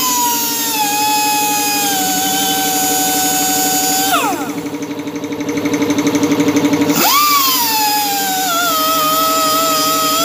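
Tyre buffing machine whining at high speed, its pitch sagging as it grinds the rubber around a tyre cut. It winds down and stops about four seconds in, then spins up again about seven seconds in and sags once more under load.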